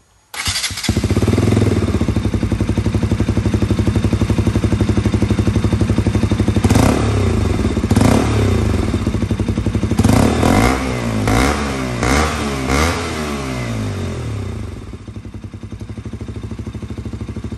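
KTM Duke 125 single-cylinder engine breathing through an Akrapovic slip-on exhaust, run with the dB-killer fitted and the catalyst removed. It is started just after the opening, idles with an even pulse, and is revved in a quick series of about seven throttle blips in the middle before settling back to idle.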